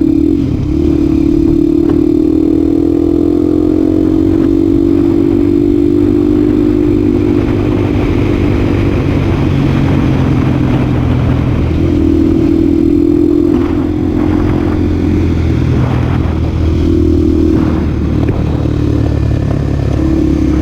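Honda Tornado motorcycle engine pulling hard under full throttle, its note rising about two seconds in and then held high, with brief dips in pitch a few times that sound like shifts or throttle changes.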